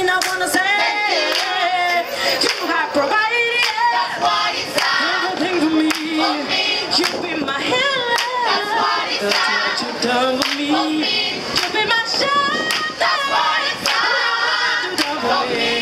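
A woman singing lead through a microphone and PA speaker, backed by a choir singing along and clapping in time.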